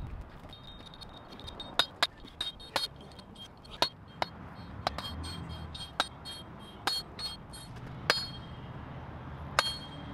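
A hammer striking steel: about a dozen sharp metallic clinks at an uneven pace, each ringing briefly.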